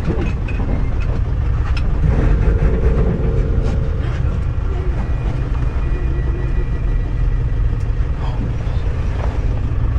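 Open safari vehicle's engine running with a steady low rumble, with faint voices coming through about two seconds in.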